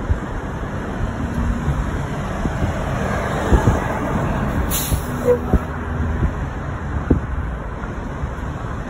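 City street traffic heard from a moving car: a steady low road rumble as a city bus passes alongside, with a brief hiss of air brakes about five seconds in.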